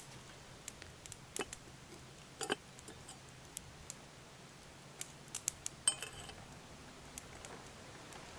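Light metal clinks and clicks from a soot-blackened camp kettle being handled and set down. One clink rings briefly about six seconds in.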